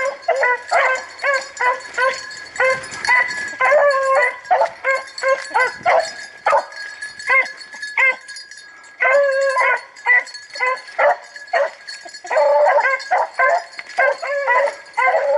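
Several rabbit hounds baying in rapid, overlapping barks and yips, with a brief lull about halfway through: the pack giving voice as it runs a rabbit's trail.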